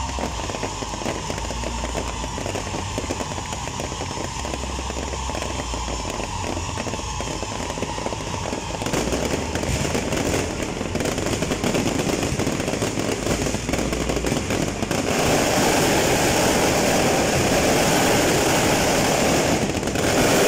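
Aerial fireworks display: a dense, continuous crackle of rapid bursts that thickens about nine seconds in and grows louder about fifteen seconds in, into a finale barrage.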